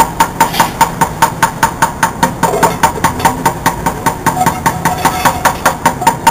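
Street bucket drumming: sticks beating a fast, steady rhythm on upturned plastic buckets, a plastic crate and a metal pan, about six sharp hits a second, each with a short ring.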